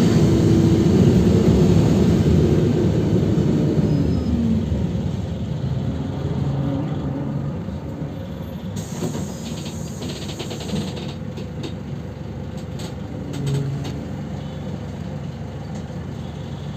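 PAZ 320405 city bus engine heard from inside the cabin: loud while moving, its revs falling about four seconds in as the bus slows, then a quieter steady idle as it stands at the stop. A few clicks and knocks come in the second half.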